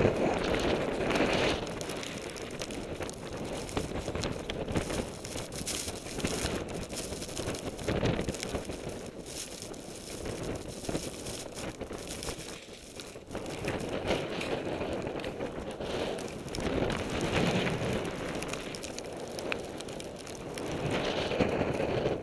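Gusting wind buffeting the camcorder's microphone in a snowstorm, rising and falling in swells, with steps crunching through deep snow.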